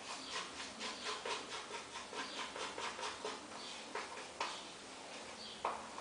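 A spatula working dental stone plaster: quick, even scraping strokes, about four a second, then a few sharp taps from about four seconds in.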